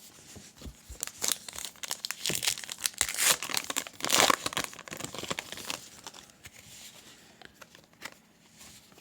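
A baseball card pack's wrapper being torn open and crinkled by hand: a run of irregular crackling rustles, busiest in the middle, then dying down to a few faint rustles.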